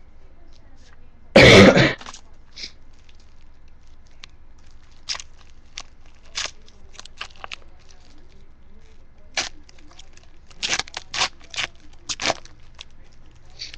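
One loud cough about a second and a half in, then scattered light clicks and flicks of trading cards being handled and flipped through.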